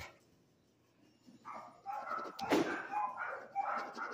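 A dog barking and whining in short high-pitched calls, about three a second, starting about a second and a half in. A single sharp knock comes about two and a half seconds in.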